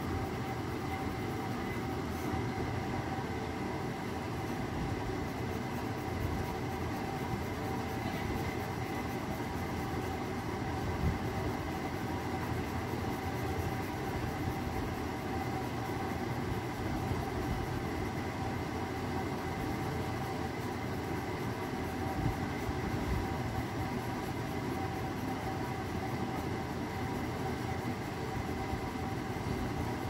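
Steady machine-like hum and hiss with two faint, unchanging high tones.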